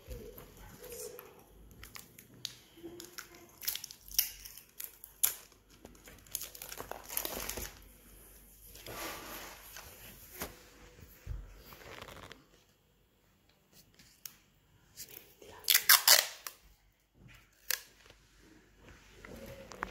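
Plastic drinking straws and paper being handled, as hands move a straw pan flute taped to cardboard: scattered crinkling, rustling and light taps, with a louder crinkle about sixteen seconds in.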